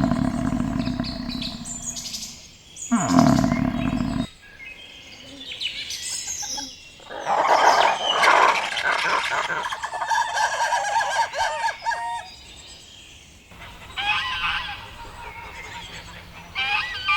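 Two deep roars from a big cat in the first four seconds, followed by chicken calls and bird chirps.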